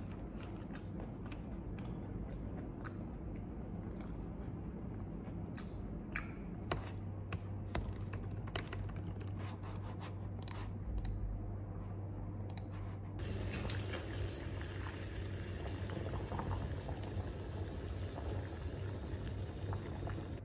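Scattered small clicks and taps of computer keyboard keys and a mouse. About 13 seconds in they give way to a steady hiss and bubbling of water at a rolling boil in a steel pot with spaghetti in it.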